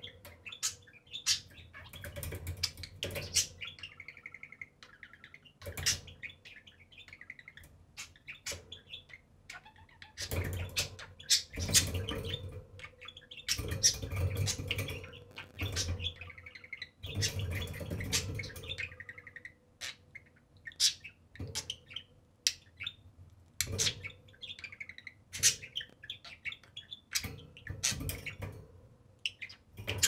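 A pair of budgerigars chattering: warbling stretches mixed with many sharp chirps and clicks, coming in bursts with short pauses between, densest in the middle.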